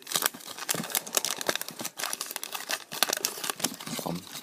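Crinkling and rustling of paper, with many small irregular crackles: a wax-paper trading card pack and its cardboard cards being handled.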